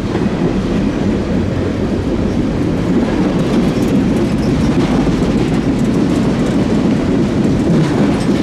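Norfolk Southern trash train's container flatcars rolling past: a steady rumble of steel wheels on rail with occasional clacks, the cars sounding empty.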